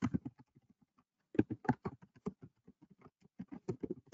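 Typing on a computer keyboard: quick runs of keystrokes with short pauses between them as an address is entered.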